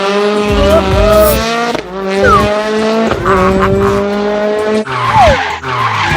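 Race-car sound effect: an engine held at high revs with a steady tone, and short falling tire squeals about two seconds in and again about five seconds in.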